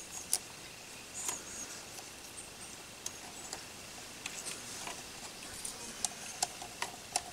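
Light clicks and taps of plastic parts being handled as a replacement arm and screw are fitted to a GoPro Karma drone's body, with one sharper click just after the start and a run of small clicks later on.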